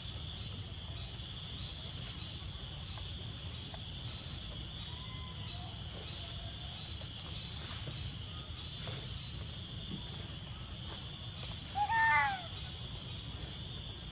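Steady chorus of forest insects, a fast-pulsing high buzz, over a low rumble. About twelve seconds in comes one short animal call that rises and falls, with several overtones; it is the loudest sound. A few faint whistled notes are heard earlier.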